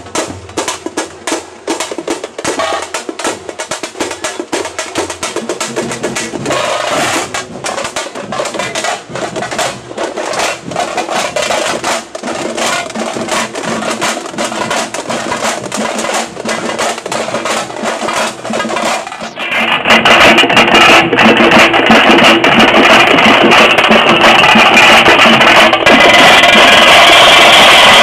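Tamte (thamate) frame drums beaten in a fast, dense rhythm of sharp strokes, becoming abruptly much louder about two-thirds of the way through.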